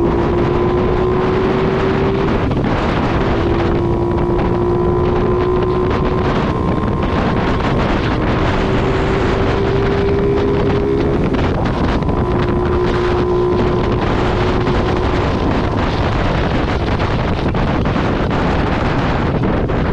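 Motorcycle engine running at a steady cruise, its note drifting slightly up and down, under heavy wind noise buffeting the microphone.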